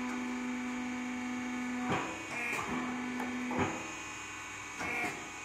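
Truck tyre changing machine's motor running with a steady hum, cutting off with a knock about two seconds in, then running again for about a second and stopping with another knock.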